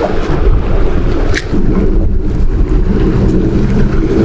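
Wind buffeting a body-worn camera's microphone: a loud, steady low rumble.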